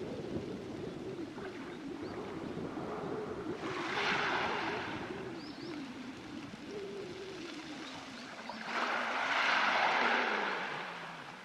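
Waves washing onto a pebble beach, surging twice, about four and nine seconds in, each swell hissing over the stones and then falling back. A low wavering hum runs underneath, with a few faint bird chirps.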